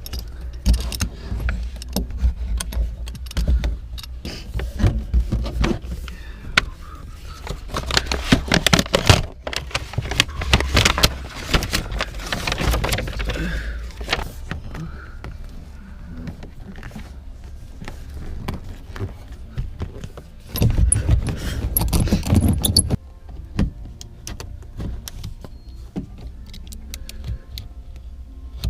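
Metallic jangling and clicking of small hardware being handled, busiest in the first half and again near the end, over a steady low bass hum.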